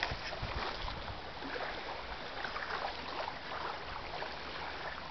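Windstorm noise: a steady rushing hiss of high wind and water over a lake.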